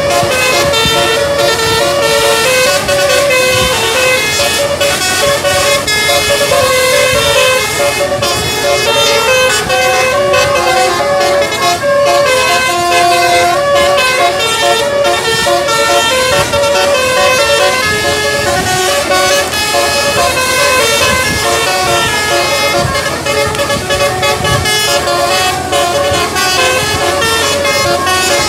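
Bus telolet musical air horn (basuri type) playing a melody loudly and without a break, its notes stepping from one pitch to the next every fraction of a second.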